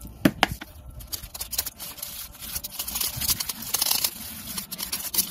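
Metal spoon scraping and clicking irregularly against a small tin while stirring thick fibreglass body filler, mixing in its hardener.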